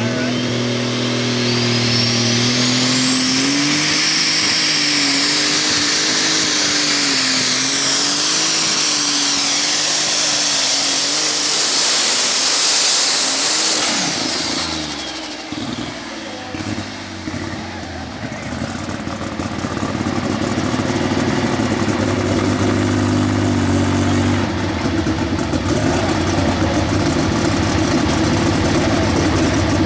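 John Deere 7720 super stock pulling tractor's turbocharged engine at full throttle under load, its turbocharger whine rising sharply over the first few seconds and then held high. About 14 seconds in it comes off the throttle at the end of the pull: the whine falls away and the engine drops to a lower, steady idle.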